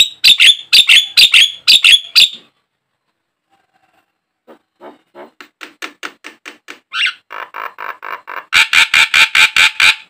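Javan myna (jalak kebo) calling in series of short, loud notes: a fast run of about seven at the start, a pause, then a quieter run that builds, with a longer call about seven seconds in and a rapid, loud chattering series near the end.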